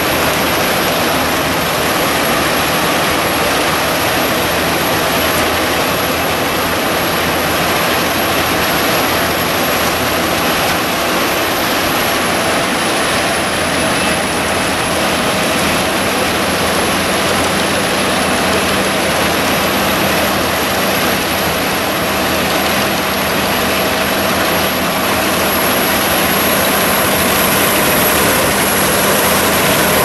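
The 850 hp Albach Diamant 2000 wood chipper running under load as it chips logs fed in by its crane: a loud, steady machine noise with a constant high whine over it.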